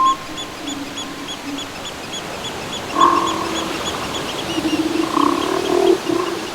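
Animal calls: longer low pitched calls about three seconds in and again near the end, over a steady high chirping that repeats about three times a second.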